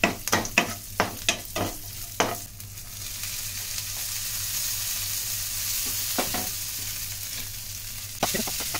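Metal spoon scraping and tapping against a non-stick frying pan, stirring chopped onions in hot oil, in quick strokes. About three seconds in, washed poha (flattened rice) goes into the hot pan and a steady sizzle takes over, with a few more spoon scrapes near the end.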